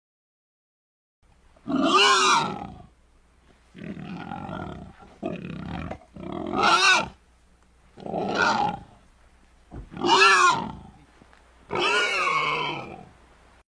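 Domestic cat meowing repeatedly: about six drawn-out calls, each rising and falling in pitch, with a couple of quieter, rougher ones in between.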